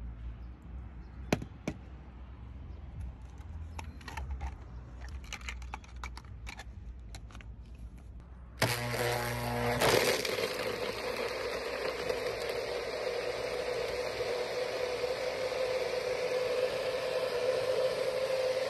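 A few faint clicks and knocks of handling, then about eight and a half seconds in a NutriBullet blender starts suddenly and runs at a steady pitch, blending ice cubes and kenkey.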